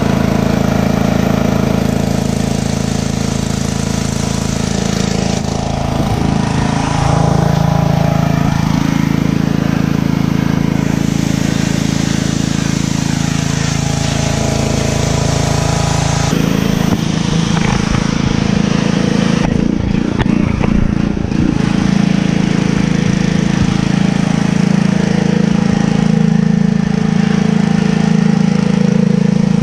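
Pressure washer running steadily: its small engine and pump humming under the hiss of a high-pressure water jet blasting soap off a truck wheel and tyre. The spray's sound shifts about halfway through as the jet moves to the foamed driveway and underbody.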